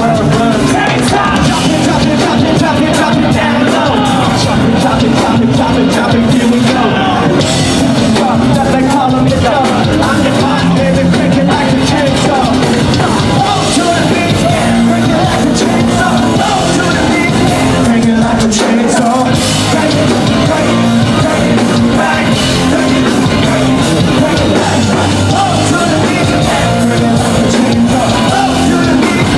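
Live rock band playing loud with distorted guitars, drums and sung vocals, recorded from within the crowd.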